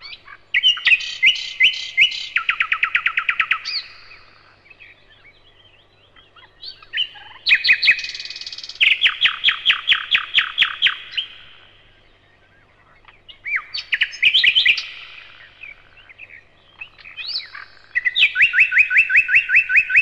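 A nightingale singing: four separate song phrases, each made of fast, rattling trills of repeated notes, with short pauses between phrases. The last phrase is still going at the end.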